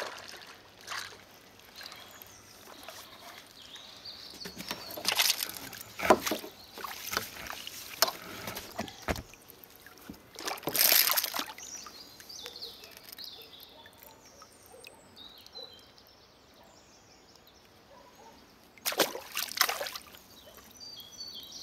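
Water splashing and sloshing in several bursts as a hooked fish thrashes at the surface and is played beside a kayak, with a few knocks against the hull.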